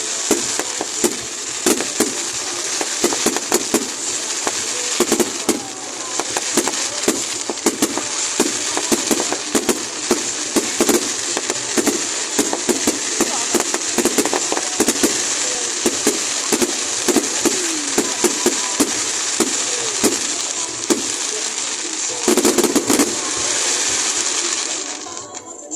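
Fireworks going off: a rapid run of bangs and crackling, with a louder burst near the end before it dies away.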